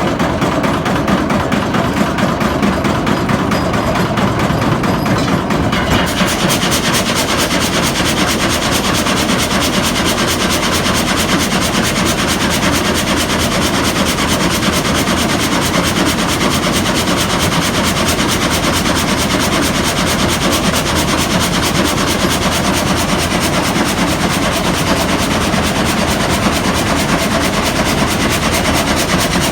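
Old Bolinder farm sawmill (frame saw) running with a steady, rapid, rhythmic clatter. About six seconds in, a brighter hiss joins it and carries on.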